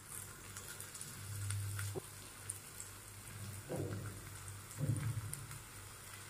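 Oil faintly sizzling with a scattered crackle in a kadai as handfuls of chopped banana flower are dropped onto frying potatoes and spice paste. A low steady hum runs underneath, and there are a few soft thuds as the handfuls land.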